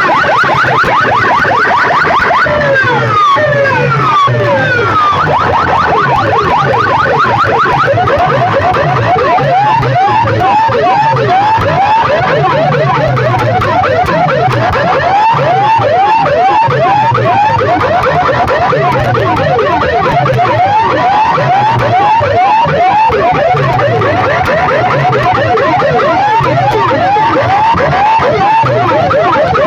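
Competition sound-system speaker stacks blasting electronic siren-like effects at full volume: falling sweeps at first, then from about eight seconds quick rising chirps several times a second over a pulsing bass line.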